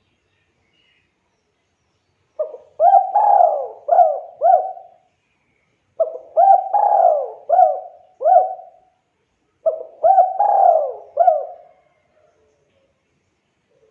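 Spotted dove singing: three rhythmic cooing phrases of four or five notes each, a few seconds apart.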